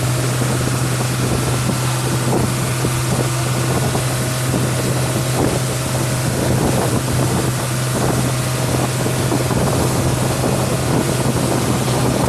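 Steady low engine drone with wind noise on the microphone.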